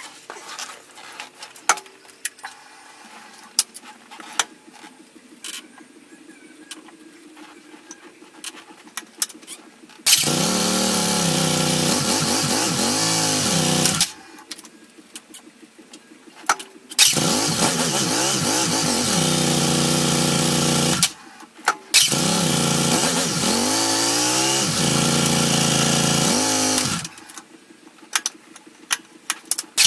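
Yamaha XT1200Z Super Ténéré's parallel-twin engine being started three times, catching at once each time, running four or five seconds with a throttle blip or two, then cut off; it fires again right at the end. The bike starts readily with no sign of the hard-starting fault being chased. Before the first start, about ten seconds of faint clicks and a low hum.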